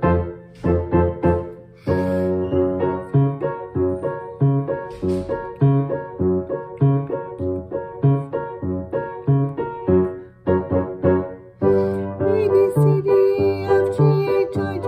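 Piano accompaniment playing repeated chords over a steady returning bass note, with a woman singing a sustained legato vocal exercise over it. Her held tones waver with vibrato and stand out most in the last few seconds.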